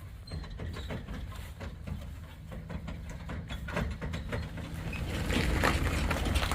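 Truck engine running low and steady, with scattered clanks and rattles over it; it grows louder about five seconds in.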